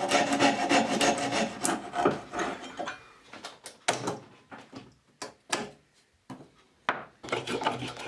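Coping saw cutting through a block of purpleheart, quick rasping back-and-forth strokes of the blade in the wood, loudest in the first three seconds. After that, sparser scrapes and knocks with short quiet gaps.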